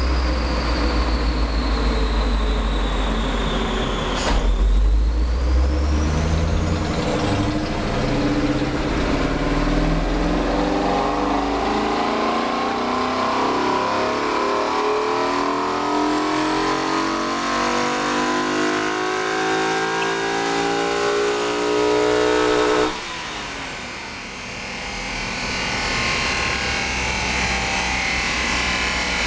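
BMW E39 M5 4.9-litre V8, swapped into an E36 Compact, running on a chassis dyno. It rumbles low at first, then climbs steadily in pitch through one long hard pull. The sound cuts off sharply about three-quarters of the way through as the throttle closes, and the engine and rollers wind down after it.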